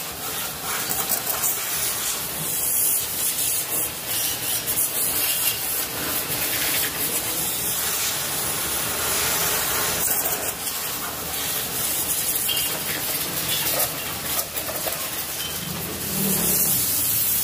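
Continuous spraying hiss, its level wavering throughout.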